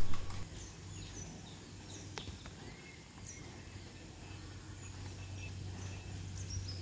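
Quiet cattle-yard ambience: faint scattered bird chirps over a low steady hum, with an occasional soft click of cows' hooves as they step about on the dirt.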